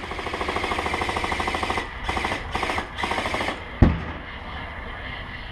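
Airsoft rifle firing on full auto: one long burst of about two seconds, then three short bursts in quick succession, each a rapid even rattle of shots. A single sharp thump comes near the end.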